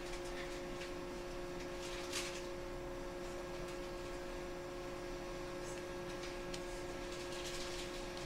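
JR 123 series electric railcar standing before departure: a steady two-pitched electrical hum from its onboard equipment, with a few short hisses of air.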